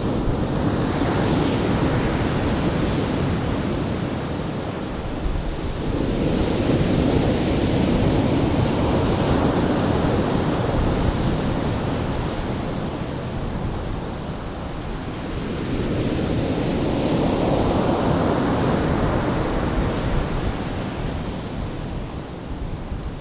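Ocean waves breaking and washing in, rising and falling in slow surges about every eight to ten seconds.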